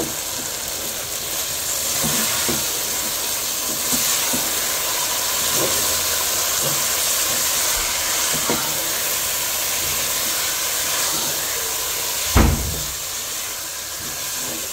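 Tandoori-marinated chicken pieces sizzling in oil in a nonstick pot, its cooking liquid cooked off, as a silicone spatula stirs them. A few light knocks of the spatula against the pot, and one louder thump about twelve seconds in.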